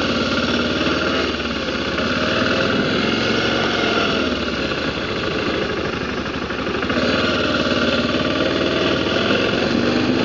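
BMW G650GS single-cylinder motorcycle engine running steadily as the bike pulls away and rides on, its pitch dipping and rising slightly through the middle.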